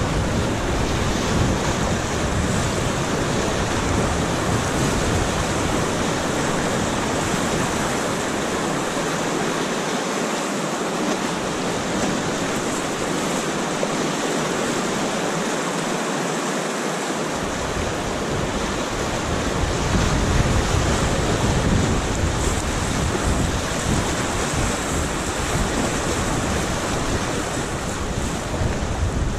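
Class III whitewater rushing and splashing steadily around the bow of an inflatable raft as it runs the rapid. A low wind rumble on the microphone underlies it, dropping away for several seconds in the middle.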